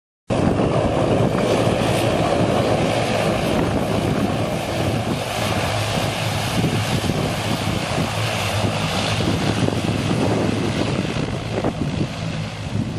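Engines of a Blue Islands ATR twin-turboprop airliner running at power as it rolls down the runway and away, a steady propeller drone with a low hum.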